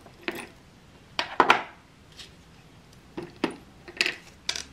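Metal rings and a wristwatch clinking and tapping against a stone jewellery dish and tabletop as they are picked up and set down: a string of short, sharp clicks, the loudest about a second and a half in, with more near the end.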